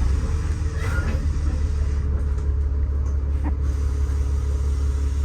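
Bus engine and road noise heard from inside the cabin while the bus is moving: a steady low rumble with a steady hum above it and a couple of faint knocks, about a second in and past the middle.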